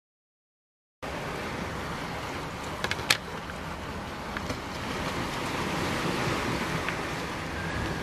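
Silence for about the first second, then steady wind and sea-surf noise. A few sharp clicks about three seconds in, from a small plastic food container being handled and its lid taken off.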